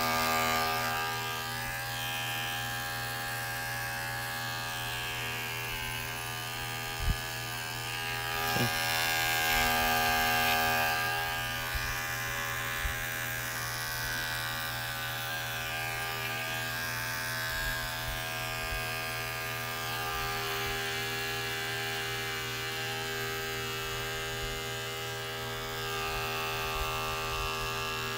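HOLDOG electric pet clipper running with a steady buzz as it shaves the fur between a corgi puppy's paw pads. It gets a little louder for a few seconds about a third of the way in, and there is a small click shortly before that.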